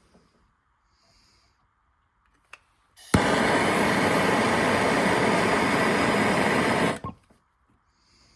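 Soldering blowtorch flame hissing loudly for about four seconds while copper pipe is being soldered: it starts abruptly with a click about three seconds in, holds steady, and cuts off suddenly.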